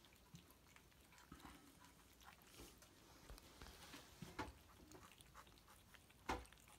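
A litter of ten-week-old Bengal kittens eating from a shared plate: faint wet smacking and clicking of chewing and lapping, with one louder knock near the end.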